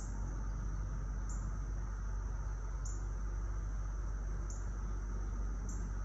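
Cicadas droning steadily at a high pitch, the drone swelling briefly about every second and a half, over a low steady rumble of light traffic.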